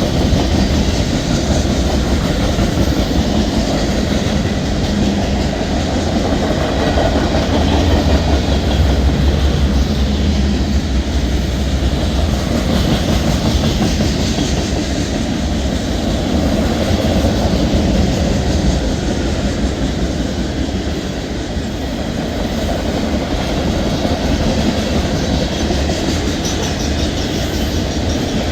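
Freight train rolling past, a steady loud rumble of railcar wheels on the track.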